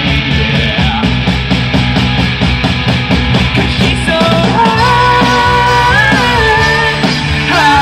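Live rock band playing: a steady drumbeat with bass, guitars and keyboard. About halfway through, a held, bending melody line comes in on top.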